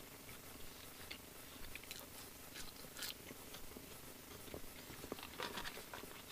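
Faint chewing of thick-cut fast-food chips, soft and not very crunchy, with small mouth clicks scattered through and a brief cluster of louder ones about five and a half seconds in.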